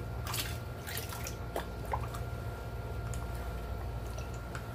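Water pouring from a plastic jug into a basin of thick liquid detergent, splashing and dripping as a wooden spoon stirs it. A few sharp clicks sound in the first two seconds.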